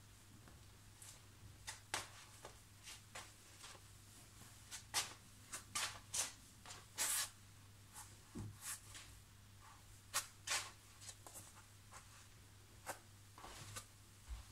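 Fleece slipper boots with dotted grip soles scuffing and tapping on a ceramic tile floor as the feet shift and are set down: irregular short scuffs, the loudest in the middle. A steady low hum runs underneath.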